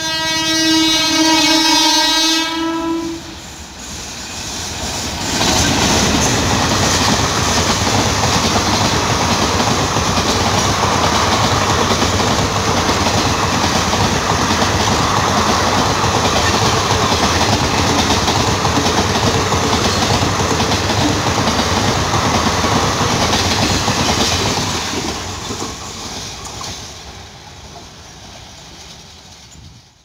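A WAP-4 electric locomotive's twin-tone horn sounds for about three seconds. An express train then passes at speed, its wheels clattering over the rail joints. The noise fades away over the last few seconds.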